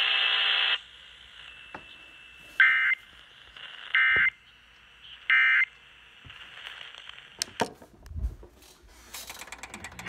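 Emergency Alert System end-of-message data tones from a small portable radio's speaker: three short, shrill squawks about a second and a half apart, marking the end of the flash flood warning relay. The radio's broadcast audio cuts off under a second in, and handling clicks and a dull thump follow near the end.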